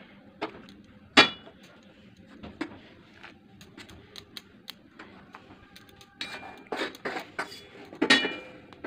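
A steel spoon clinking and scraping against a steel plate and saucepan as chushi dumplings are added to milk on the stove. There is a sharp ringing clink about a second in and another near the end, with a busy run of lighter taps and scrapes just before it.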